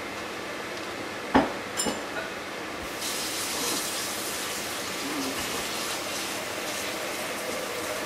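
A sharp knock about a second and a half in and a couple of lighter clicks, then a kitchen faucet turned on about three seconds in and running steadily into the sink during cleanup.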